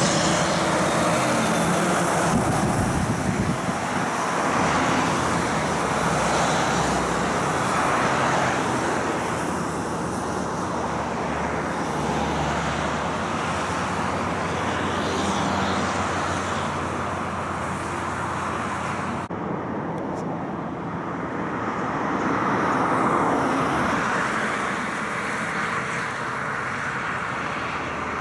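Highway traffic driving past, among it a heavy truck and trailer hauling refrigerated shipping containers. About two-thirds of the way through the sound changes abruptly to another stretch of road, where a truck approaches on a wet road and the tyre and engine noise swells.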